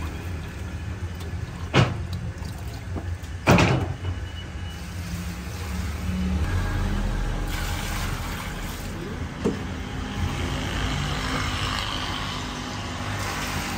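Belt-driven electric dough mixer running with a steady low hum. A plastic jug knocks sharply twice near the start as water is scooped from a plastic drum, and water is then poured splashing into the flour in the mixing bowl.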